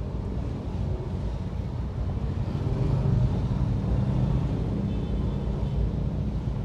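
Idling engines of cars and motorcycles waiting at a traffic light make a steady low rumble, heard through an open car window.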